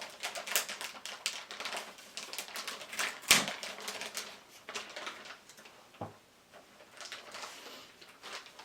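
Motherboard packaging being handled and opened: irregular clicks, taps and rustles, with a few sharper knocks about half a second, three seconds and six seconds in.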